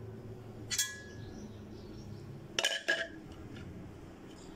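A glass jar's rim clinked twice by a plastic blender jug being tapped and lifted off after pouring, about a second in and again past the middle; each clink is short with a brief ring.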